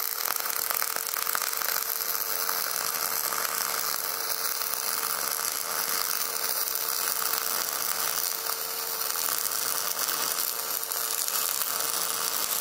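MIG welding arc burning steadily: an even, dense crackle with a faint steady hum under it.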